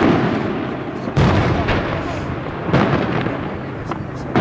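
Aerial firework shells bursting in a display: a loud boom about every second and a half, each trailing off into a long rumbling echo.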